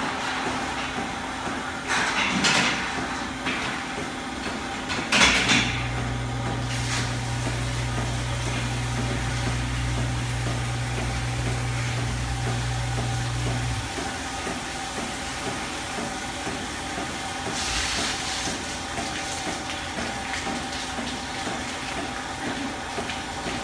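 Milking parlour machinery running steadily. A pump motor switches on about five seconds in, runs for about eight seconds and cuts off, with a few short bursts of hissing air.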